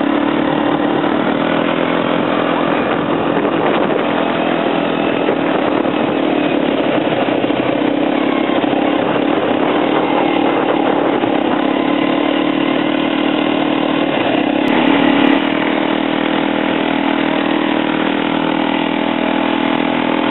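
Quad bike engine running steadily under way, its pitch shifting a little, briefly louder about three-quarters of the way through.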